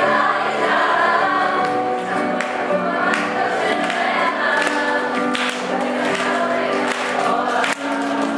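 Large choir of secondary-school students singing together in many voices, holding long notes.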